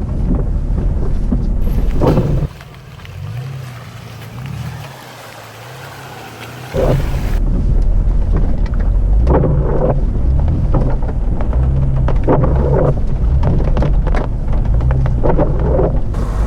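Heavy rumbling wind buffeting on the microphone over an off-road 4x4 engine; during a quieter stretch a few seconds in, the engine is heard revving up and down.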